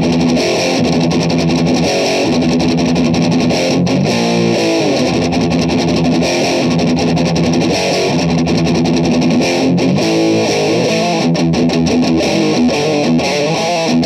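Electric guitar played through a distortion pedal with a heavily saturated, high-gain tone: a riff of fast repeated low notes, broken by short quicker runs about four seconds and ten seconds in.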